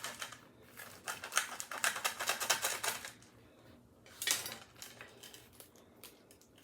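Rapid, crisp crackling and clicking from handling a crusty toasted-bread sandwich, dense for about two and a half seconds, then a shorter burst near the middle and a few faint ticks.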